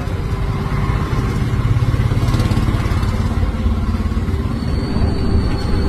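Road traffic passing close by: a small engine running steadily over the rumble of vehicles, growing louder about a second in.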